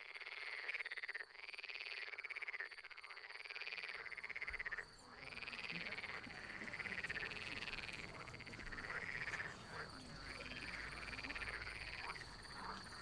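Frogs croaking: a string of pulsed calls, each rising and then falling in pitch, about one or two a second with short breaks between groups.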